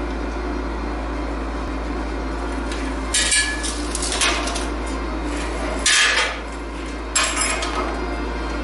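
Steel box-section tubing and hand tools knocked and clinked against a workbench while being measured and handled: four sharp metal knocks, the first ringing briefly and the loudest about six seconds in, over a steady low hum.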